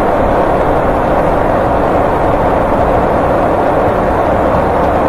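Jet aircraft in flight: a steady, even rushing drone with no change in pitch or level.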